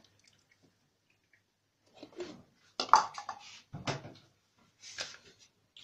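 A few knocks and short clatters of a cup, a plastic funnel and a plastic bottle being handled and set down on a stone counter. They start about two seconds in, after a quiet stretch, and the sharpest knock comes about three seconds in.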